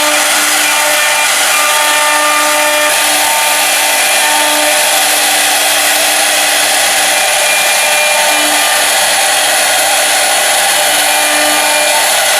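Four-spindle rotary CNC router's air-cooled spindles running and rough-cutting: a loud, steady machining noise with faint tones that drop in and out.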